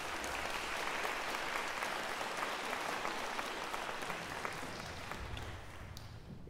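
Audience applause in a concert hall: dense clapping that thins and fades out in the last second or two.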